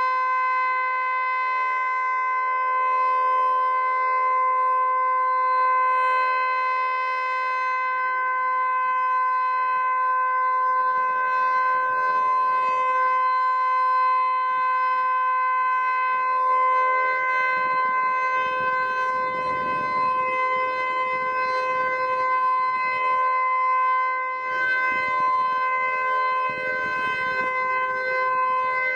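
Federal Signal Eclipse 9 electronic outdoor warning siren sounding the full alert: a loud, steady tone held at one pitch from its fixed, non-rotating horns, with no rise and fall. From about eleven seconds in, a low rumbling noise comes and goes beneath it.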